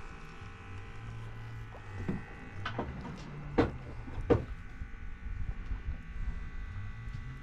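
Low steady buzzing hum aboard a fishing boat, broken by four sharp knocks between about two and four and a half seconds in, the last two the loudest.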